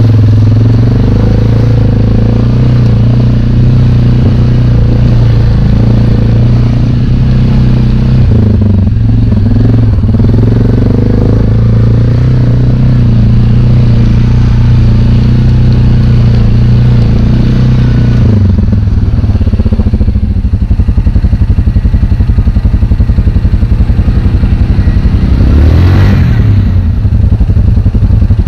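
ATV engine running steadily as the quad rides over a rough, rocky trail. About two-thirds of the way through it drops to a pulsing idle, and a brief swell of engine sound comes near the end.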